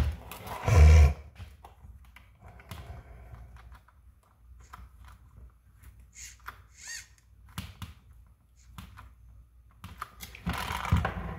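Scattered light clicks and taps of small screws, a hex driver and plastic RC suspension parts being handled, with a brief high squeak about six to seven seconds in.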